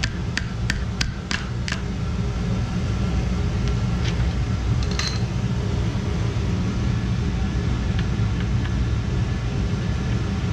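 Steady low machinery hum throughout, with a quick run of sharp metal taps, about three a second, in the first two seconds as a screwdriver works the conduit elbow fitting loose on the circulator pump's wiring box. A single click comes about five seconds in.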